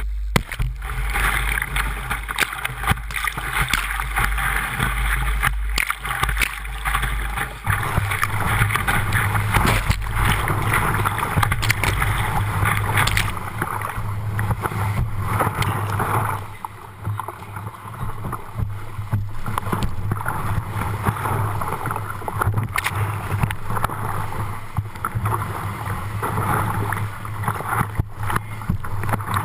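Whitewater rapids rushing and churning around a kayak running a steep creek, with wind buffeting the microphone. A steady low drone runs underneath and steps up in pitch about eight seconds in.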